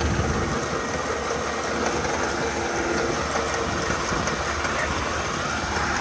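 John Deere 6110 tractor's diesel engine running steadily under load as it pulls an onion-lifter bar through the soil.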